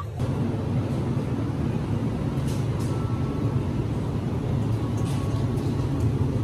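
Steady low rumble of a vehicle running, starting abruptly a moment in and holding an even level.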